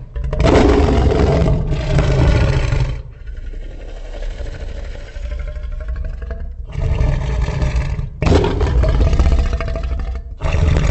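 Custom designed roars for a monstrous hybrid dinosaur creature: a long deep roar, a few seconds of lower, quieter growling, then three more roars in quick succession.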